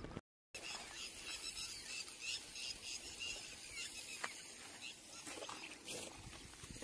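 Faint outdoor ambience with small birds chirping now and then.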